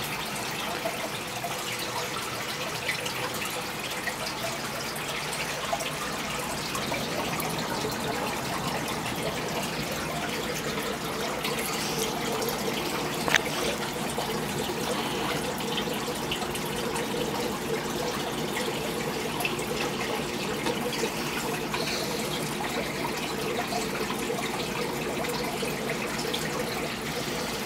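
Aquarium filter and aeration running: steady trickling and bubbling water with a faint hum under it, and one small click about halfway through.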